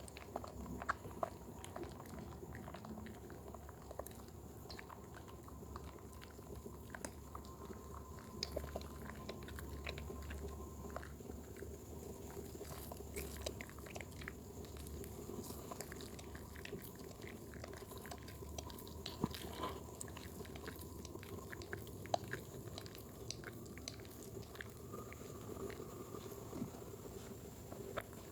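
Wet bar soap being lathered: a run of small squelching, sticky clicks and crackles of foam, coming irregularly over a low steady background.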